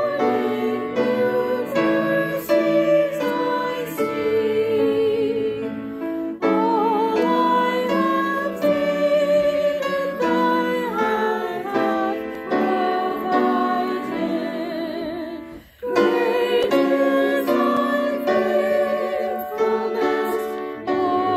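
Church choir singing a hymn in parts, with sustained notes and vibrato. The singing stops briefly about three-quarters of the way through, then carries on.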